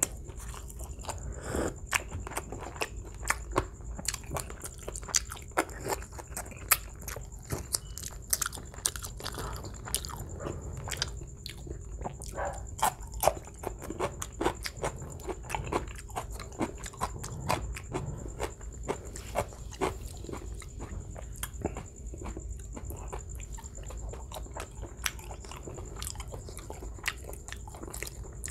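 Close-miked chewing of roast butterflied chicken: wet, irregular mouth smacks and clicks, several to a second.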